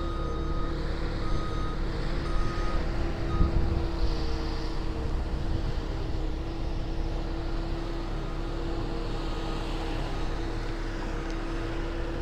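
Skid steer loader's engine running steadily on a construction site. Its backup alarm beeps repeatedly for the first three seconds or so, then stops. There is a low bump about three and a half seconds in.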